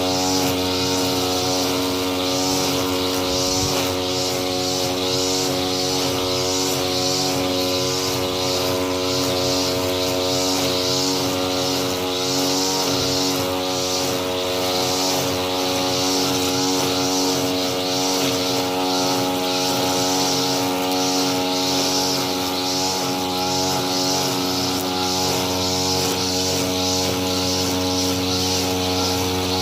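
Lawn mower running steadily at constant speed, an even droning hum with no changes in pitch or loudness.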